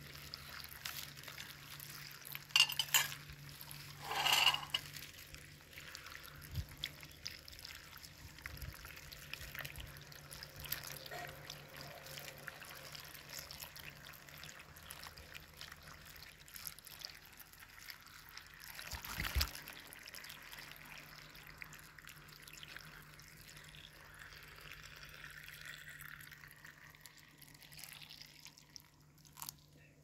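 Water pouring in a steady stream from a large plastic water bottle into a glass jar packed with apple pieces and sugar, filling it to cover the apples. There are a few brief louder surges, and the pour stops just before the end.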